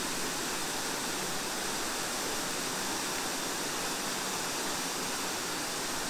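Waterfall pouring, a steady, even rush of falling water.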